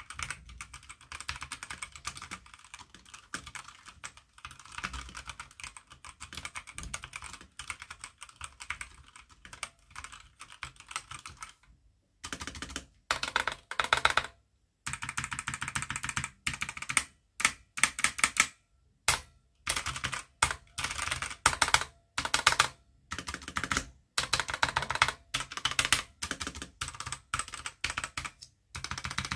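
Typing on a Gamepower Suki TKL mechanical keyboard with red linear switches: a fast run of key clicks for about twelve seconds, then shorter bursts of typing with brief pauses between them. The switches carry a spring noise that is clearly heard in a quiet room.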